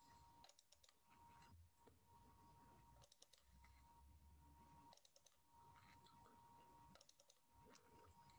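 Faint clicking of computer keys, in short quick runs about every two seconds, over a faint steady high-pitched tone.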